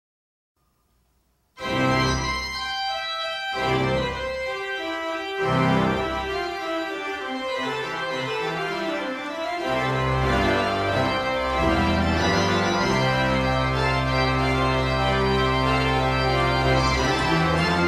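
Slow organ music with long held chords and a sustained bass, starting suddenly about a second and a half in after silence.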